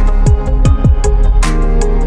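Electronic background music with a steady beat: deep kick drums that drop in pitch, sharp high drum hits and held synth chords.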